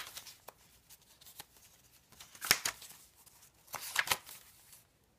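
Thick crinkled tea-dyed paper pages and cards of a handmade junk journal rustling as they are turned by hand, with sharper paper flicks about two and a half and four seconds in.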